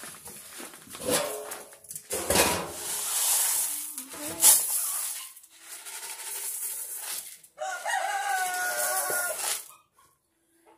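A rooster crows once, about two seconds long, near the end. Before it comes the scraping rustle of a plastic scoop digging into a bin of chicken feed, with a sharp knock about four seconds in.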